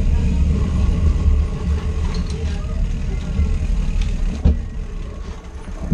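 Low, uneven rumble of wind and road noise on a bicycle-mounted camera's microphone as the bike rolls along, easing off slightly toward the end, with a single knock about four and a half seconds in.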